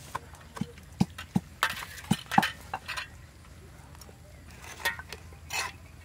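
Metal spoons clinking and scraping against stainless steel trays as cooked fish flesh is picked off the bones. There is a quick run of sharp clinks in the first three seconds and a few more near the end.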